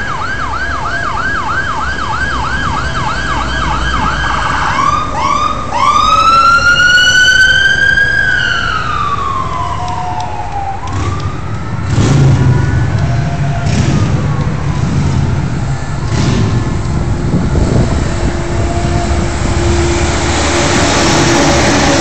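Police escort siren in a fast yelp, switching about five seconds in to a slow wail that rises, falls and stops around eleven seconds in. Then heavy vehicle engines and tyre noise of the passing convoy, growing louder near the end.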